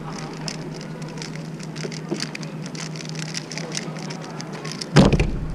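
Plastic speedcube layers turned rapidly by hand, a quick run of soft clicks through the solve. Near the end comes a loud thump as the solve finishes: the puzzle is set down and the stack timer slapped.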